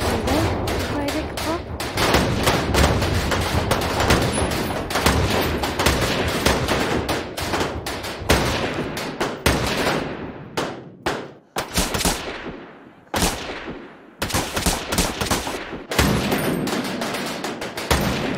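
M16 rifles firing on a shooting range: a fast, dense string of overlapping single shots, each crack trailing off in echo, thinning out to scattered shots after about ten seconds.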